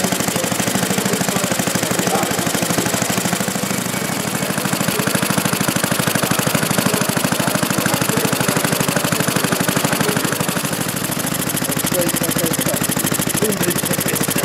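Model gas engine running steadily, with a rapid, even train of firing beats.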